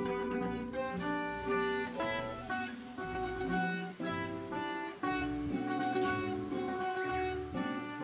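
Background music: a plucked guitar melody over low bass notes, a new note every half second or so.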